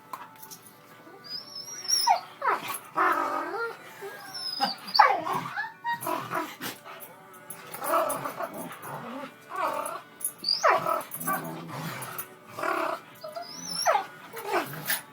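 Dog sneezing hard again and again in a long fit, one forceful sneeze about every second or two.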